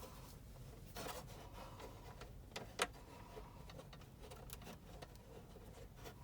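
Quiet handling of small plastic parts, with a few short clicks; the sharpest click comes a little under three seconds in.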